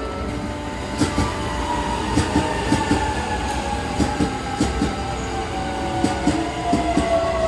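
A train rolling past at a station. Its wheels clack over the rail joints, often in pairs, starting about a second in, and a motor whine falls slowly in pitch throughout.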